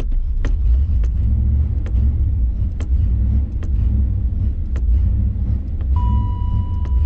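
1987 Chevrolet 350 tuned-port-injection V8 running steadily, a deep rumble with sharp irregular ticks over it. About six seconds in, a steady high tone starts and carries on.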